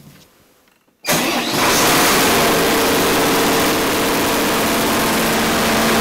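Diesel generator set started from its control panel: quiet for about a second, then the engine catches and settles into a steady, loud running hum. It is running to charge the station's storage batteries.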